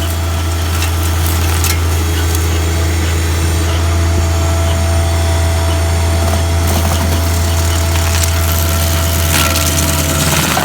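An engine running steadily at a constant speed, with a strong low hum that does not change.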